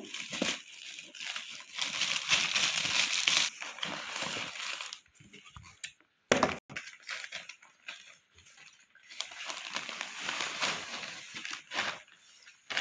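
Gift wrapping being torn and crumpled by hand as a stubborn present is opened. The rustling comes in two long stretches, with a pause about halfway broken by one sharp crackle.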